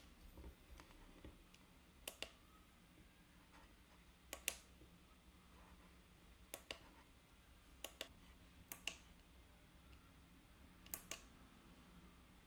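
Faint, sharp clicks over near silence: six groups, most of them close pairs, coming every one to two seconds.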